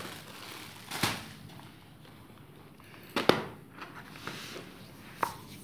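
Plastic saree packaging and cloth being handled as a packed saree is opened and unfolded: soft rustling with three sharp crackles or knocks, the loudest about three seconds in.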